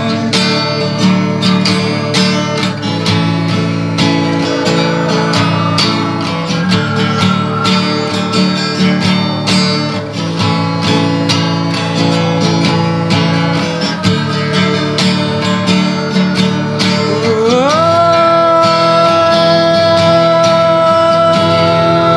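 Background music: an instrumental passage of an Indonesian pop ballad led by strummed acoustic guitar. Near the end a tone glides up and then holds.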